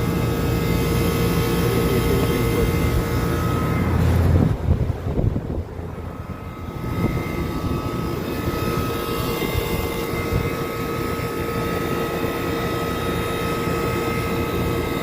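Air conditioner running after a burned field-wiring line was repaired: a steady mechanical hum of the compressor and fan with a few steady tones over a whooshing noise, briefly disturbed and dipping about five seconds in before settling again.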